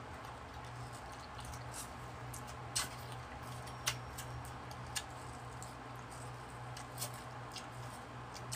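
Mouth sounds of people eating ripe mango slices close to the microphone: wet smacks and slurps with a few sharp clicks, spaced about a second apart, over a steady low hum.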